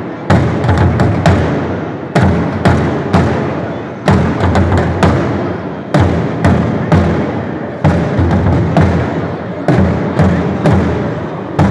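Several dhol drums played together in a fast, driving rhythm of about four strikes a second, with a loud accented stroke about every two seconds.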